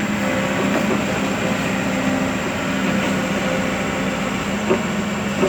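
KOBELCO excavator's diesel engine running steadily under work, with two short knocks near the end.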